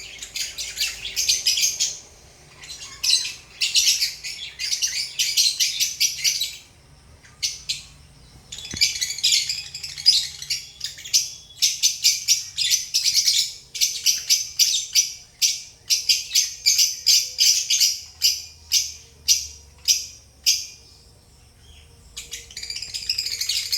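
Lovebirds chirping in fast, high-pitched runs of chirps, broken by a couple of short pauses.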